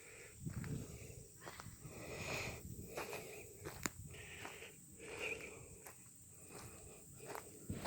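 A person's footsteps while walking, a soft step about every 0.8 seconds, with one sharp click a little under four seconds in.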